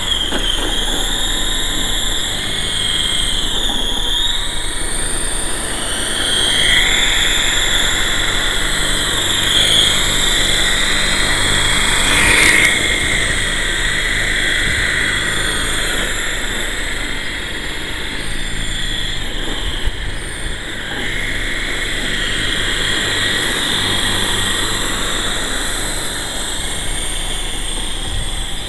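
Electric motors and spinning coaxial rotors of a GT Model QS8006 radio-controlled helicopter whining steadily, the pitch wavering up and down as the throttle changes. There is one brief click about twelve seconds in.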